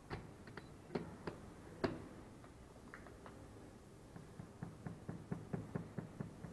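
Soft knocks and clicks: a few scattered ones at first, then a quick, even tapping of about five knocks a second over the last two seconds.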